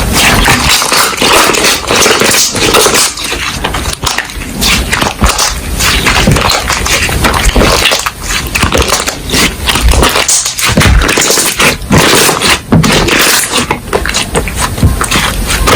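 Hands squishing, pressing and stretching slime close to the microphone: a dense run of sticky clicks, crackles and pops.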